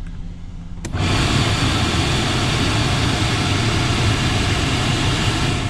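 The HVAC blower of a 2004 Ford Explorer comes on suddenly about a second in and blows a loud, steady rush of air, heard from under the dash by the blend door, over the low hum of the idling engine.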